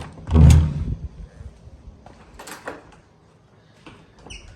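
Hotel room door being opened, with a heavy thud about half a second in, followed by a few lighter clicks and knocks from the door and its latch.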